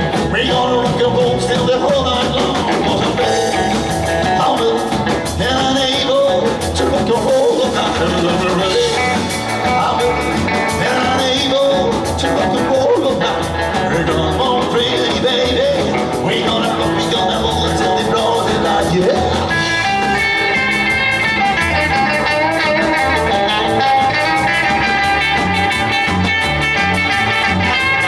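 Rockabilly / rock 'n' roll band playing live, with electric guitar and drums keeping a steady beat.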